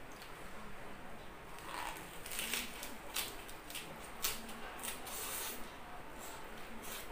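Lettuce leaf rustling as it is folded, then close-miked crunchy chewing of a lettuce-wrapped piece of grilled pork jowl: a quick run of crisp crackles and wet mouth sounds, busiest in the middle.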